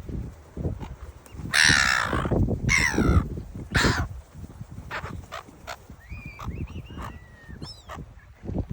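Gulls calling: three loud, harsh squawks in the first half, then several shorter, thinner calls.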